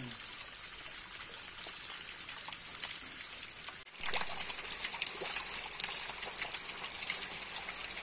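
A small waterfall's thin stream splashing into a shallow rock pool: a steady hiss of falling water with fine patter. It dips briefly just before the middle, then returns louder.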